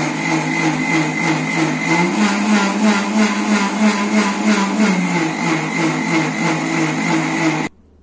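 Electric mixer grinder running, blending a thick avocado shake in its steel jar. Its motor hum rises slightly in pitch about two seconds in, drops back about five seconds in, and cuts off shortly before the end.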